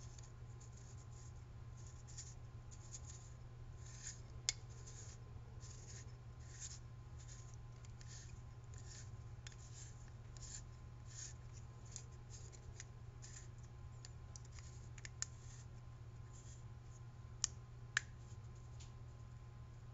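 Faint, repeated scratchy rasps of a plastic retaining-ring tool turning a threaded tube retaining ring into a BNVD 1431 night-vision housing, with a few sharp clicks, two of them close together near the end.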